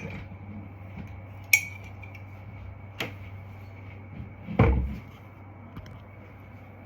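Kitchenware being handled: a sharp clink about a second and a half in, another knock about 3 s in, then a louder thud with a short rattle a little later, over a steady hum.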